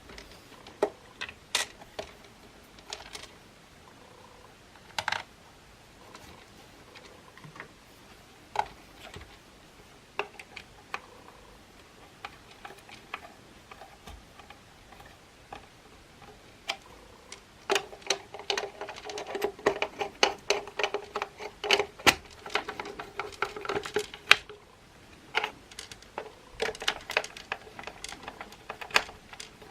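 Hand-work clicks, taps and rattles of the hard plastic housing parts of a Makita CL107FD cordless vacuum cleaner being handled during disassembly. The clicks come scattered at first, then gather into a busy stretch of rattling about two-thirds of the way through.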